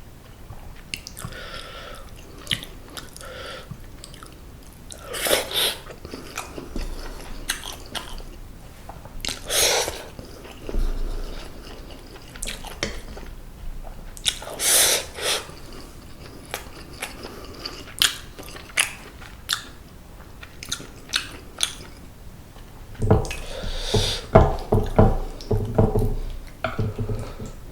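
A person chewing and biting close to the microphone, eating seasoned boneless semi-dried pollock, with wet mouth clicks and a few louder bites.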